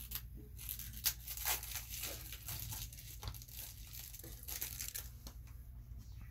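Wrapping being torn and crinkled off a new deck of playing cards in irregular crackly bursts, busiest about a second in and again near the end.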